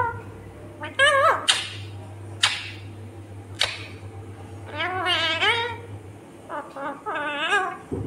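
Indian ringneck parakeet calling: a string of wavering, squawking calls with a few short sharp shrieks between them, over a low steady hum.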